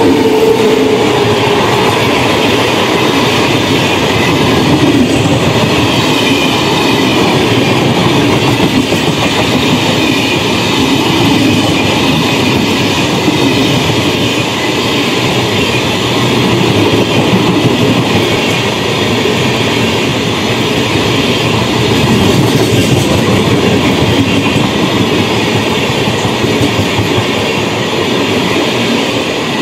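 Express passenger train of red coaches, behind a WAP7 electric locomotive, passing close by at speed: a loud, steady rush of wheels on rail. A steady tone near the start fades within the first second or so, as the locomotive goes by.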